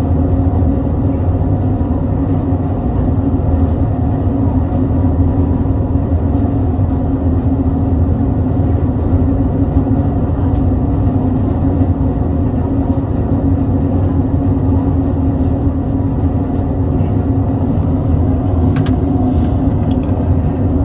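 Ferry's diesel engines droning steadily, a loud low hum with a constant pitch, heard from inside the ship.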